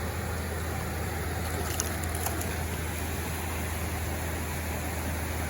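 Steady rushing of flowing river water, with a couple of faint small clicks about two seconds in.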